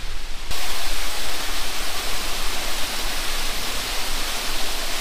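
Waterfall: a steady rushing hiss of falling water, which becomes suddenly louder and brighter about half a second in.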